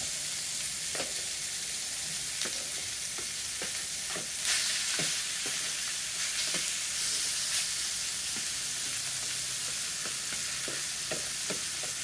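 Chopped seasoned chicken and onions sizzling as they are tipped out of a container onto a hot griddle: a steady high hiss with scattered light knocks and scrapes, swelling briefly about four and a half seconds in.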